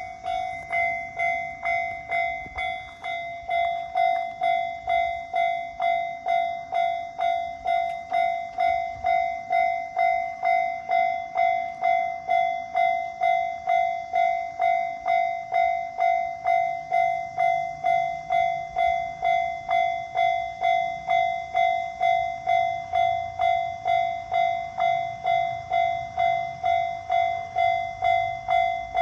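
Japanese railway level-crossing warning bell, its electronic ringing struck evenly about twice a second, growing louder about three and a half seconds in. A low rumble joins the bell from about halfway through.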